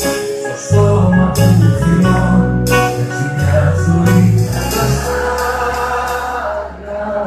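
Live band playing a Greek pop song, with bass notes, guitar and drums. Cymbal crashes land roughly every one and a half seconds through the first half.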